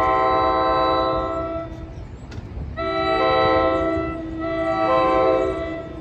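Approaching commuter train's air horn, a chord of several tones together, sounded in long blasts with a clear pause about two seconds in, over a low rumble. It is the horn warning for a grade crossing.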